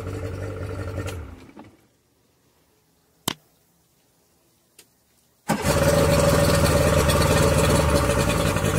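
Yamaha 50 hp outboard engine running, then shut off about a second in and dying away. After a few seconds of near silence broken by two clicks, it starts again and catches at once, running steadily at the raised fast idle of its Prime Start automatic choke, which is working properly.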